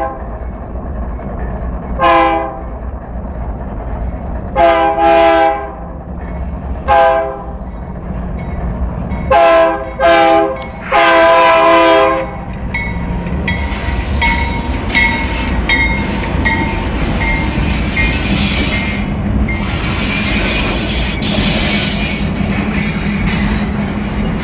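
GE C44-9W diesel locomotive sounding its air horn in a series of short and long blasts, the last one the longest, over the first twelve seconds. The train then rolls by with the steady rumble of the diesel engine and a rhythmic clickety-clack of wheels over the rail joints.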